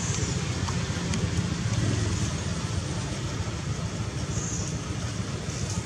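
Steady outdoor background noise: a low, fluttering rumble under an even hiss, with no call or other sound standing out.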